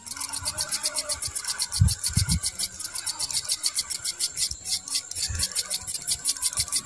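A small spinning reel cranked steadily, its gearing giving a fast, even clicking of about eight ticks a second. A few dull bumps from handling the rod come about two seconds in.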